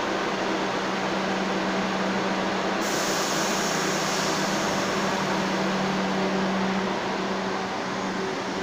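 R62A subway train standing at the platform with its doors closed, giving a steady hum with a low drone. About three seconds in, a high hiss suddenly joins. Near the end the train starts to move off.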